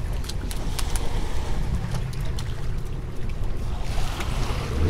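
Small fishing boat at sea: a steady low rumble of wind and water, with scattered knocks and clicks, and a short rush of water shortly before the end.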